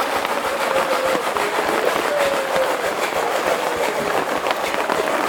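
Steady noise of rain and water on a flooded street, with many small crackling ticks.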